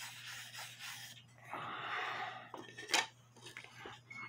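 Hand rubbing a small wooden cuckoo-clock part, a dry rasping rub that is loudest around two seconds in. A sharp knock comes about three seconds in, followed by a few light clicks.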